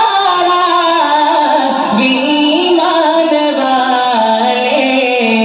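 A man's solo voice singing a naat (Urdu devotional hymn) into a handheld microphone, in long held notes that waver and glide from one pitch to the next, with no instruments.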